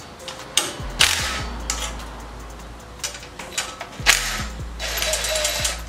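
Cordless power driver running in several short bursts as it backs out the 10 mm clamp bolts on a motocross bike's stock exhaust header pipe. There is a brief burst just under a second in, a longer one about a second in, and a strong one about four seconds in that runs on for about a second near the end.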